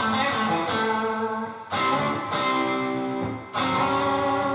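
Electric guitar with a Lace Sensor Dually Emerald/Purple humbucker switched to series, played through a lightly driven amp: a few chords strummed and left to ring.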